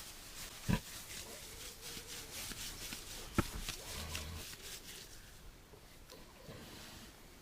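A pig grunting: two short grunts, about a second in and again about three and a half seconds in.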